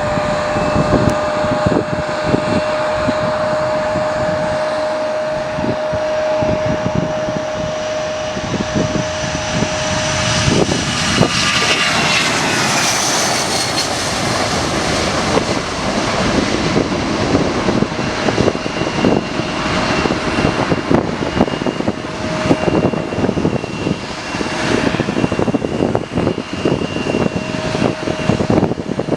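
Boeing 757-200 jet engines running loud and close, a steady whine over a roar. About eleven seconds in, the pitch falls as the aircraft passes by, and then the engine noise goes on steadily.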